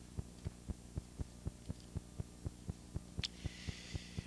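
Faint steady electrical hum in the sound system, with a soft regular pulse about four times a second. Near the end comes a single click and a brief hiss.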